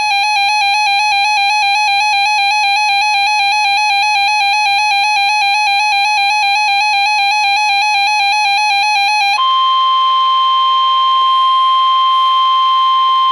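Weather radio alert: a rapidly warbling electronic alarm tone for about nine seconds. It then gives way to NOAA Weather Radio's steady, single-pitch warning alarm tone over faint broadcast hiss, the signal that a warning message follows.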